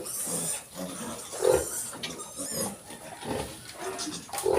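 A litter of young piglets grunting and squealing, with two louder grunts about a second and a half in and near the end.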